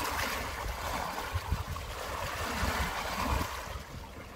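Small lake waves lapping and washing over shore stones: a steady splashing hiss with irregular low rumbles underneath.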